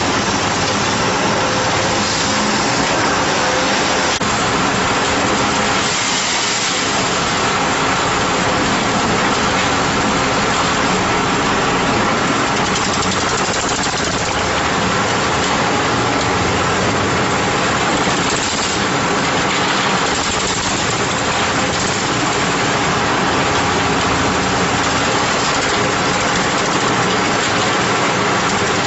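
JZC series roller drum concrete mixer running: a steady machine hum under a constant rushing noise, with no change in level.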